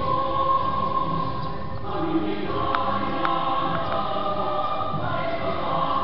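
A choir singing slow, long-held notes in harmony, the chord changing about two seconds in and again near five seconds.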